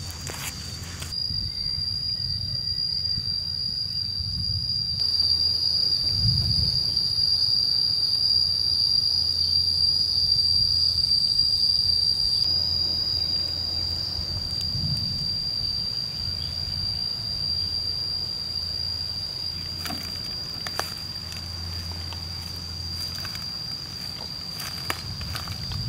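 Steady, high-pitched drone of insects, one unbroken tone throughout, with a few soft low thumps and faint clicks beneath it.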